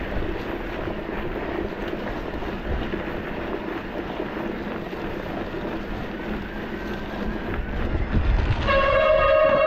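Steady wind and riding noise, then near the end a low rumble and a loud, steady train horn that starts suddenly and holds one pitch.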